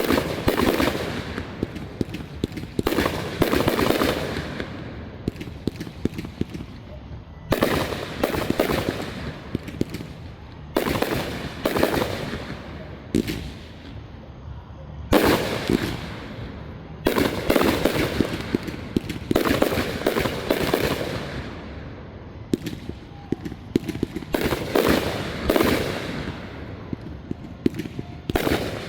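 Aerial fireworks shells bursting and crackling in rapid volleys. Clusters of bangs come every two or three seconds, with short lulls between them.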